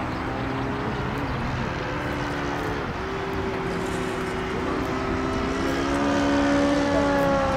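Radio-controlled model airplane's motor and propeller droning in flight. The pitch dips briefly about three seconds in and shifts again near six seconds with throttle, and the drone grows a little louder toward the end.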